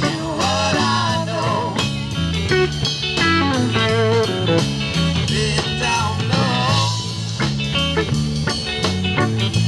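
Live band playing through amplifiers: electric guitars over drums and a low, steady bass line, with a regular beat.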